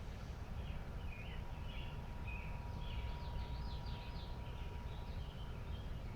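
Birds chirping repeatedly over a steady low outdoor rumble.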